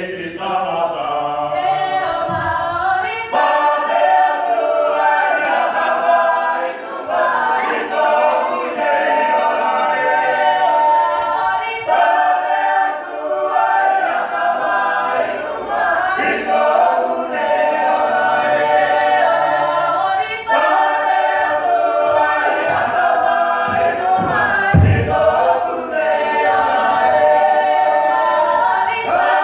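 Mixed choir singing a Cook Islands imene tuki hymn unaccompanied, several voice parts held in close harmony without a pause.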